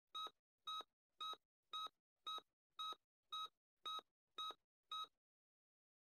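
Countdown timer beeping: ten short, identical electronic beeps at an even pace of about two a second, one for each number from ten down to one.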